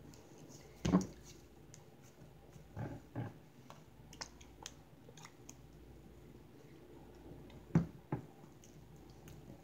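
Butter slime being kneaded and pressed onto a tabletop by hand: short squishes and soft slaps, one about a second in, two close together near three seconds and two more near the end, with small sticky ticks between.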